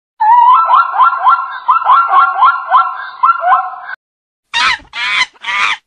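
Plains zebra barking: a rapid series of rising, yelping calls, about three a second. After a short break come three harsher, breathier calls.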